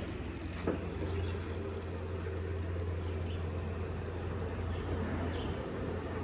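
Vehicle lift lowering a truck: a steady low hum with a hiss, with a light click about a second in.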